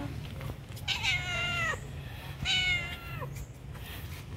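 Ginger domestic cat meowing twice, two long meows about a second and a half apart that each drop in pitch at the end, a hungry cat begging for food.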